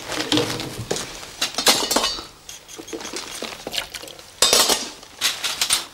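Metal dental instruments clinking and clattering against a tray and against each other, as a run of sharp clinks with the loudest bunch about four and a half seconds in.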